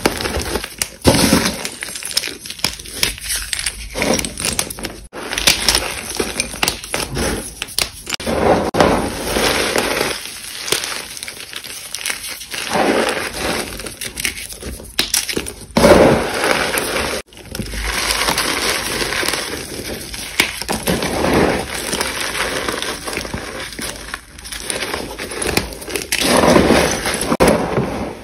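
Reformed chalk blocks and sticks of school chalk being crushed and crumbled by hand: a dense run of crackling with sharp snaps, coming in uneven waves.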